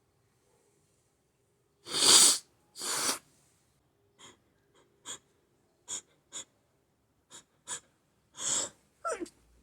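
A person sneezing. After a quiet start come two loud sneezes about a second apart, then a run of short, sharp sniffs, and another sneeze-like burst with a brief falling vocal catch near the end.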